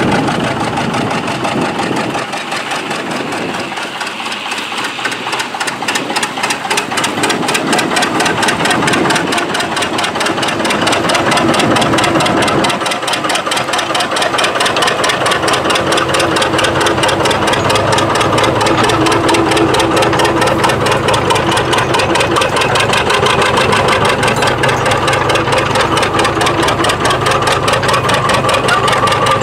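John Deere R two-cylinder diesel tractor engine running with its rhythmic exhaust beat while pulling a tillage implement under load. It grows louder over the first ten seconds or so, then holds steady.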